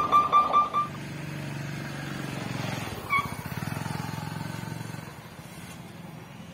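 An electric level-crossing warning bell ringing rapidly, about six strokes a second, which stops about a second in. After it, the low hum of a motorcycle and car engines idling at the crossing, with one short high chirp about three seconds in.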